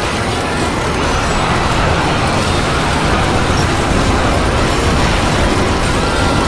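Thirty-nine cartoon episode soundtracks playing at once. Their music, voices and sound effects merge into a dense, steady wash of noise in which no single sound stands out.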